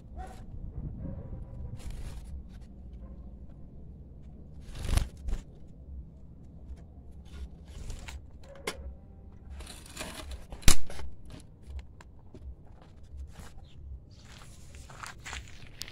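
Wooden-framed wire bird cages being handled: scraping and rattling, with a knock about five seconds in and a sharp click near the eleventh second.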